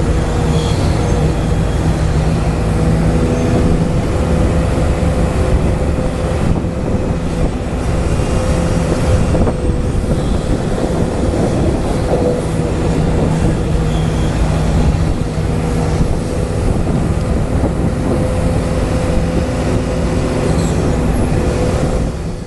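Volvo RC excavator's electric motors running with a steady whine as it swings and moves its boom and bucket.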